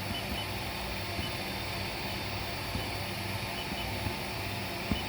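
Steady electrical hum and fan noise from a powered-on laser welding machine, with a few faint, short high blips.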